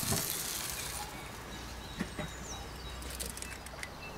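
Cream sauce sizzling in a cast-iron pan on a gas grill, the hiss dying away about a second in. It leaves a quiet background with a soft click near the middle and a few faint bird chirps.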